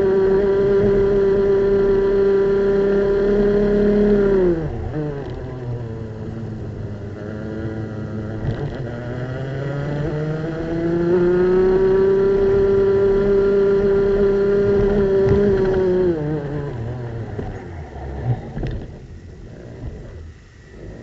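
Two-stroke racing kart engine under full throttle, heard from on board. It holds high revs, drops in pitch about four seconds in as the kart brakes, climbs steadily back to high revs and holds there, then falls away to low revs over the last few seconds as the kart slows for a tight corner.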